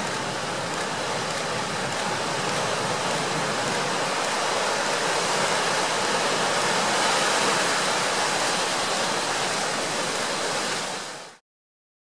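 Steady roar of giant breaking surf and churning whitewater, swelling slightly past the middle and cutting off abruptly near the end.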